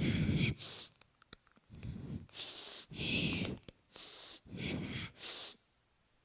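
A person breathing heavily and forcefully, seven harsh breaths in and out, mostly in pairs, stopping shortly before the end.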